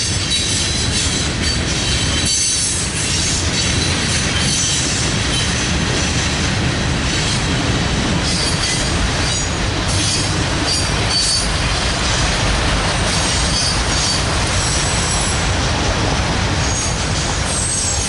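Freight train rolling past: covered hopper and autorack cars clattering steadily over the rails, with brief high wheel squeals coming and going.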